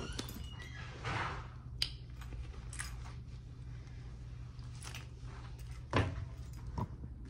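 Movement and handling noise: a few light clicks and rustles, with a sharper knock about six seconds in, over a low steady room hum.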